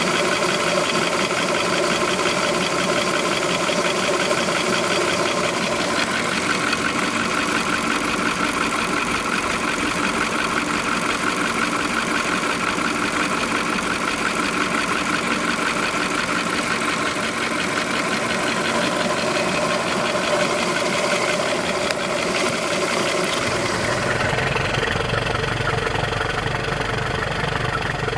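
2005 VW Polo 1.4 engine idling hot, with a fast, steady clicking running through the idle: the unexplained clicking noise the owner is trying to identify. About 24 seconds in the sound turns duller, with more low rumble and less treble.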